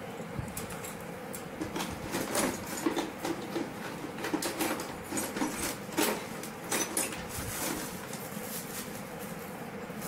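Budgerigars chattering in a cage: a run of quick, short chirps and clicks from about a second and a half in until near the end, over a faint steady hum.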